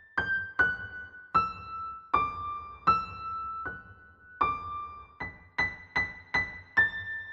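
Background music: a slow, gentle melody of single piano or electric-piano notes, each struck and left to ring, with a few quicker notes near the end.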